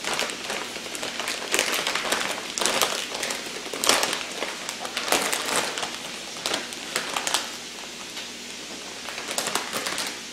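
Clear plastic produce bag of jalapeño peppers crinkling in irregular bursts of crackling as it is handled, untied and opened.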